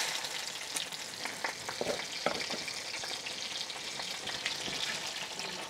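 Guajillo chile sauce sizzling in hot fat as it cooks over browned chicken in a clay cazuela. A few light knocks of a wooden spoon against the pot as it is stirred.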